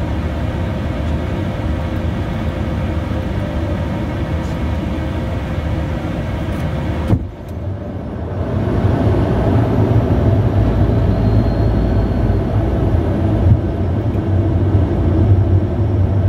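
Cabin noise of a Bombardier Challenger 350 business jet in flight on its descent: a steady rumble of engines and airflow. About seven seconds in the sound drops out briefly, then comes back louder and deeper.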